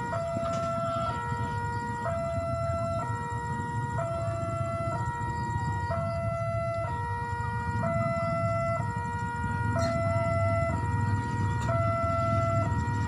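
Railway level-crossing warning alarm sounding, alternating steadily between two electronic tones, each held about a second, signalling that a train is approaching. A low rumble from the approaching train builds under it toward the end.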